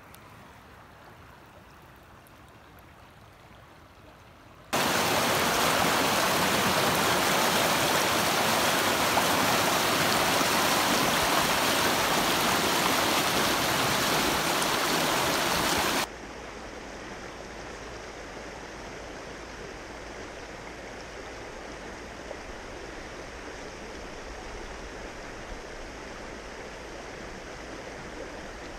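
A rocky trout river flowing and splashing. It starts as a soft hiss, then the rushing whitewater of a riffle comes in loud about five seconds in and stops abruptly near the middle. A steadier, quieter river flow follows to the end.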